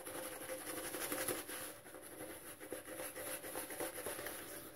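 Boar-bristle shaving brush scrubbing and swirling shaving soap on the face, a faint steady wet brushing as the lather is worked up on the skin.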